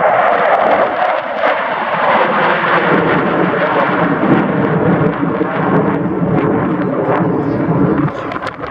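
F-16 Fighting Falcon jet passing by loud, its noise dropping lower in pitch a few seconds in as it moves away, then fading near the end.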